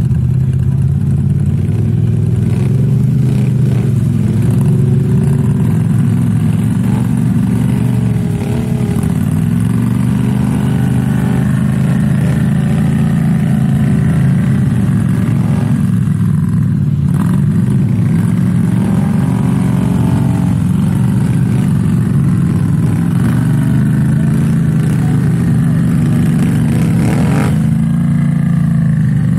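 ATV engines running in deep mud, revving up and falling back again several times while a stuck quad is worked out of the mud.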